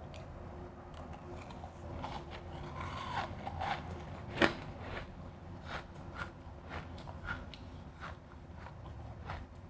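Refrozen crushed ice being bitten and chewed close to the microphone: irregular crisp crunches, with one loud sharp crunch about halfway through.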